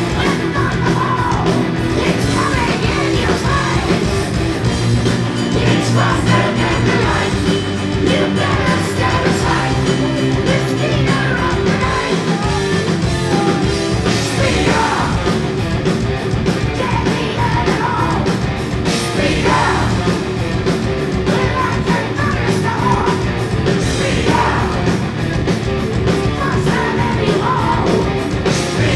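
Heavy metal band playing live: distorted electric guitars, bass and drums, with a lead vocal sung over them.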